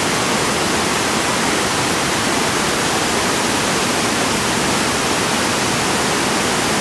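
Waterfall pouring over rock into a pool: a loud, steady, even rush of water.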